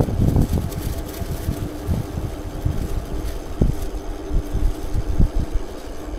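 Wind buffeting the microphone of a handlebar-mounted camera on a moving bicycle: uneven low gusts of wind noise with a faint hiss above them.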